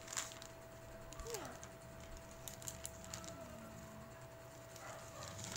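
Thin black plastic mailer pouch crinkling and crackling in small hands as it is opened and rummaged through, a few scattered sharp crackles over a quiet background.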